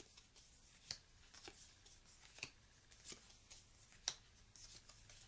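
Board game cards being dealt one at a time onto a wooden table: faint snaps and slides roughly once a second.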